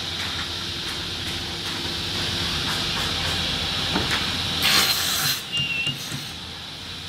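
CNC wood board cut-off saw running with a steady high whine over a low hum. A little past halfway a loud burst of noise under a second long comes as the machine goes through a cut on the clamped board.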